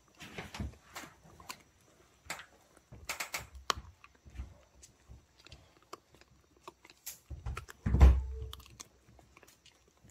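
A dog gnawing and chewing a piece of dried beef liver jerky: irregular crunching clicks of teeth on the tough jerky. A louder low thump comes about eight seconds in.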